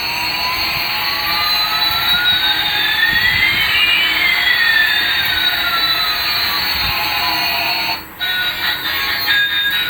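Electronic jet-engine sound effect: a steady jet hiss with one whine gliding up and another gliding down over about eight seconds, crossing midway. It breaks off briefly about eight seconds in.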